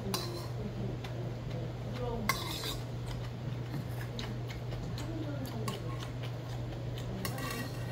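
Metal spoon scraping and clinking against a stainless steel bowl as mixed rice is stirred and scooped, with a sharper clatter about two seconds in and again near the end. A steady low hum runs underneath.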